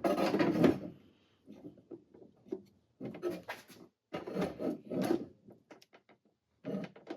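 Handling noise from a boxed wrench set being picked up and moved about: rubbing and light knocks of the cardboard box, loudest in the first second, then in several short bouts.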